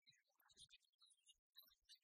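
Near silence: the soundtrack is almost empty, with only faint scattered blips.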